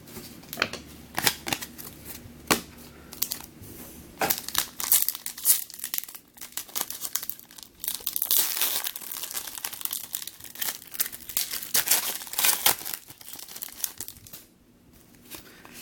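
Trading-card pack wrapper being crinkled and torn open by hand, with irregular crackling and tearing as the cards are pulled out and handled.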